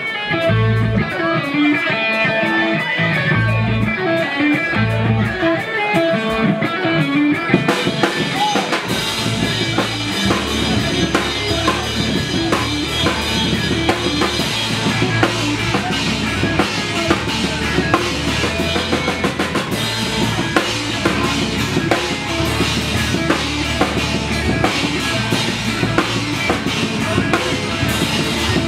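Live pop-punk rock band playing the opening of a song: a sparse start of guitar notes over low hits, then about eight seconds in the full band comes in, with electric guitars, bass and a drum kit with cymbals driving on steadily.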